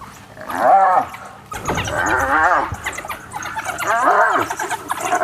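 Spotted hyena squealing and whining under attack by wild dogs. It gives several drawn-out calls, each rising and then falling in pitch, about a second or two apart.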